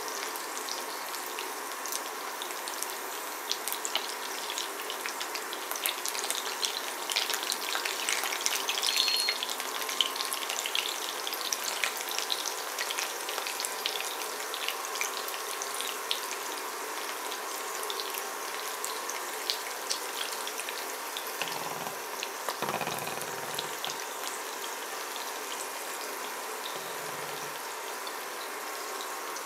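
Hot vegetable oil sizzling and crackling around breaded chicken nuggets in a ceramic frying pan. The crackles are thickest in the first third and thin out later, with the induction hob switched off. A few dull bumps come about two-thirds of the way in.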